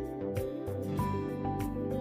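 Background music with a steady beat, plucked notes over a bass line.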